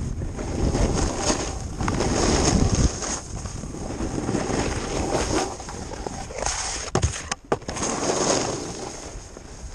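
Wind buffeting the microphone and skis scraping and hissing across groomed snow, swelling and fading with each turn, with two sharp knocks about seven seconds in.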